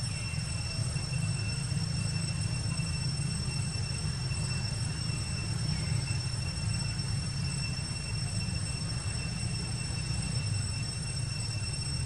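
Steady low outdoor rumble with a thin, steady high-pitched whine above it, unchanging throughout.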